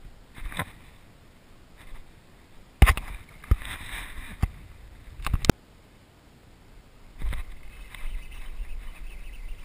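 Water splashing in the shallows, among several sharp knocks bunched between about three and five and a half seconds in, then a low rustling noise near the end.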